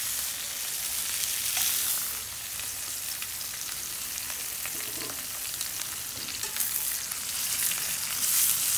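Top round steaks sizzling in hot beef tallow in a cast-iron skillet, a steady high frying hiss, with a few light clicks of metal tongs as the steaks are handled.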